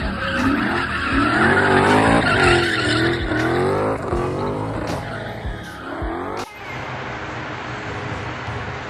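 A car's tyres squealing and its engine revving, with wavering, sliding pitch over a steady beat. About six and a half seconds in, the squealing cuts off sharply and a steadier engine note carries on.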